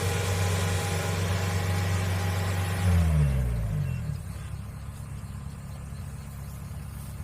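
Kubota DC70 Plus combine harvester's diesel engine running steadily, then throttled back about three seconds in: its pitch falls over about a second and it settles into a quieter, lower idle.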